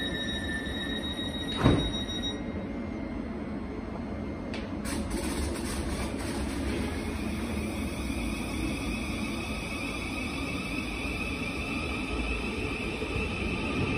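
Thameslink Class 700 electric train at a platform: a steady high tone fades, with one sharp thump about two seconds in, then the train's traction whine builds as it starts to pull away.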